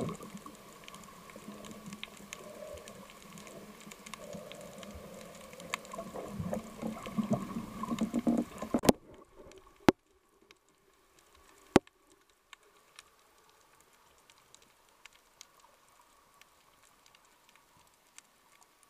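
Underwater sound through an action camera's housing: water movement noise mixed with a crackle of small clicks, growing louder and then cutting off abruptly about nine seconds in. After that only faint scattered clicks remain, with two sharp knocks a couple of seconds apart.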